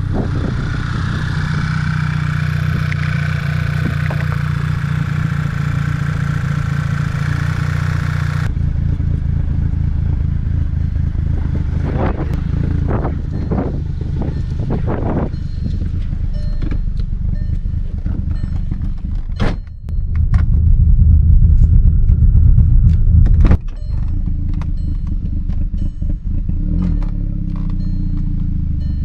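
Volkswagen Eos engine idling roughly, its idle upset by a bad vacuum leak. A louder stretch comes about twenty seconds in, with a few knocks before it.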